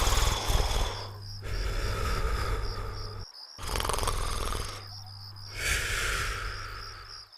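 Cartoon snoring sound effect: a rattling inhale, then a long breathy exhale with a whistle in it, repeated twice with short pauses between breaths.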